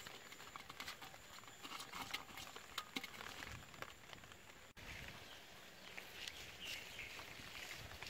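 Live climbing perch flapping and scraping in a wet clay pot: faint, scattered clicks and patters. The sound drops out briefly just before the middle, and a faint outdoor background follows.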